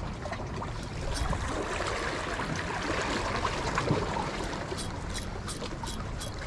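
Steady wash of sea water and wind at the shoreline, with a few short, high clicks near the end.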